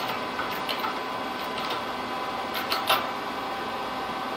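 Arbor press pushing a tapered roller bearing home on a mini lathe spindle: a few light metal clicks, with two sharper ones close together about three seconds in, over a steady hum.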